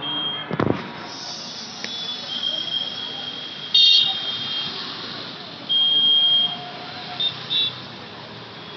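Road traffic with vehicle horns honking: a short loud blast about four seconds in, a horn held for nearly a second a little later, and two quick toots near the end, over a steady hum of traffic. A sharp knock sounds early on.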